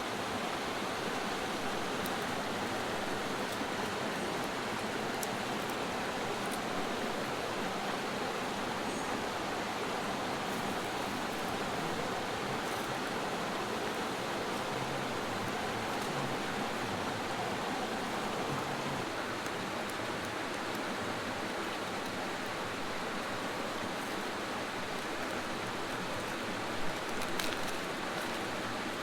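Creek water rushing steadily, with a few faint clicks and a small knock near the end.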